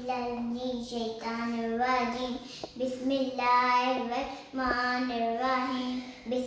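A child chanting a prayer in a sing-song voice: long, level held notes with short breaks between phrases.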